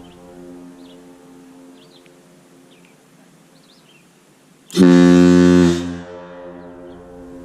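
Airchime compressed-air ship horn giving one loud, short blast of about a second, starting just past halfway and cutting off sharply. Its chord echoes back off the surrounding hills, fading before the blast and returning fainter after it.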